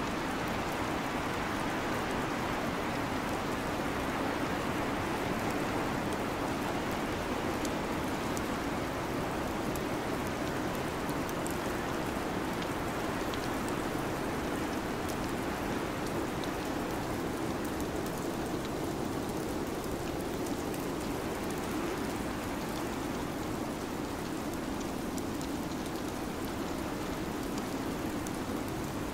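Steady winter-storm ambience: an even, rain-like rushing hiss with faint scattered ticks.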